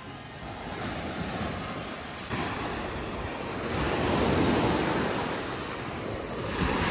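Small lake waves breaking and washing up on a sandy shore, in a steady wash of surf. It grows louder about two seconds in, with one wave swelling to a peak about four seconds in and another near the end.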